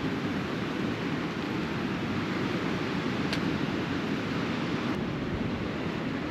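Steady rush of sea surf washing on the shore, with some wind on the microphone.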